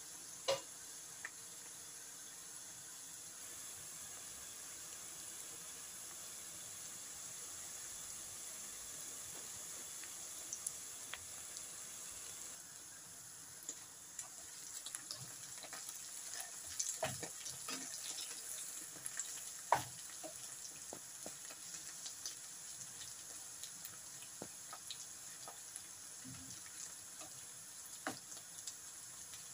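Bitter gourd (karela) slices sizzling steadily in oil in a frying pan on high heat, with scattered pops and crackles, busiest about halfway through.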